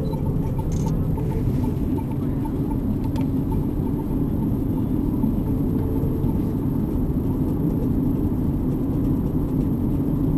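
Steady road noise of a car driving along a paved highway, heard from inside the cabin: an even rumble of tyres and engine.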